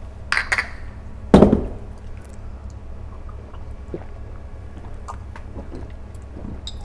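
Heavy glass beer mugs clinking together in a toast, with one loud knock about a second and a half in. A steady low hum follows, with a few small faint knocks.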